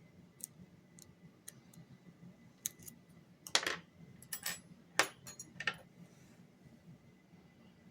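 Lock-picking tools working in a lock: light metallic ticks, then a run of louder metallic clicks and rattles in the middle, the loudest about three and a half and five seconds in.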